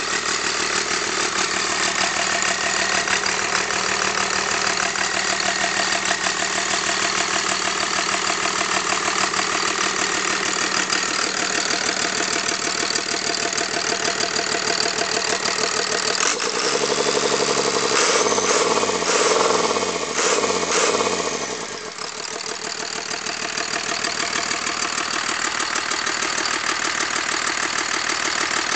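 Dodge 24-valve Cummins 5.9 L inline-six turbo diesel with a P7100 injection pump, running steadily at idle. From about 16 seconds in it is revved up for a few seconds, then drops back to idle about 22 seconds in.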